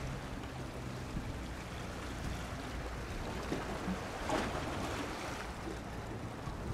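Sea water washing at the shoreline with wind on the microphone, one wave swelling louder a little past the middle, over a faint low steady hum.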